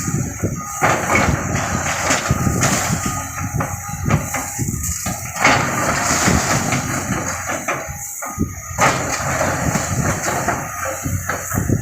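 Building demolition: wood and debris cracking, crashing and knocking in many irregular impacts, over a steady rumble of machinery.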